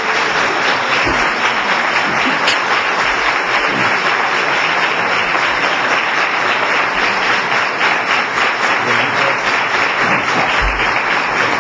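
Audience applauding: dense, steady clapping that keeps up without a break.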